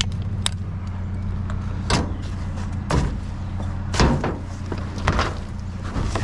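Vehicle engine idling with a steady low hum, with several sharp knocks and clatters of junk being handled spread through it.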